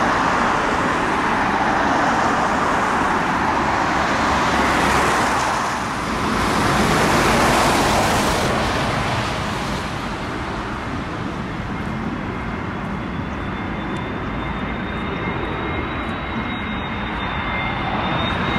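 Jet airliners landing and approaching, mixed with road traffic: a broad roar from a landing Airbus A350 swells and fades in the first half. After that a steadier rumble carries a thin high engine whine that rises slowly as an approaching Airbus A320neo-family jet draws near.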